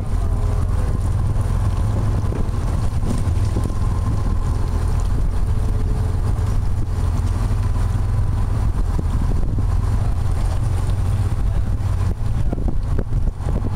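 Tour boat's engine running steadily with a low drone, mixed with wind rumbling on the microphone.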